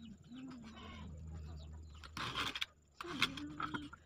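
Chickens clucking in short, low calls, with a brief scraping noise about two seconds in.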